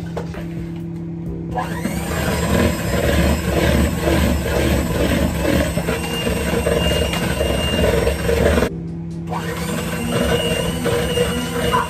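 Electric hand mixer running in a bowl, creaming butter and sugar for cookie dough, over loud pop music; the motor starts about a second and a half in, cuts out briefly near the nine-second mark and starts again.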